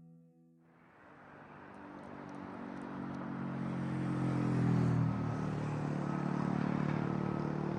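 A motor vehicle's engine and road noise, growing steadily louder over the first few seconds and then holding steady.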